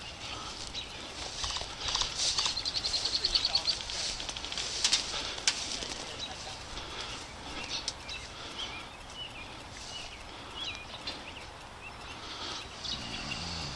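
Birds chirping and calling, with a rapid run of ticks about two seconds in and a few sharp clicks around five seconds in.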